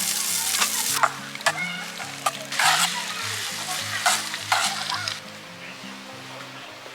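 Food sizzling as it fries in a hot pan, with several sharp clinks of a utensil. The sizzle dies down after about five seconds. Background music plays underneath.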